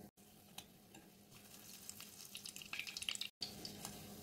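Grass carp roe patty frying in shallow oil in a pan, a faint sizzle with light crackles that pick up about three seconds in. The sound drops out briefly twice.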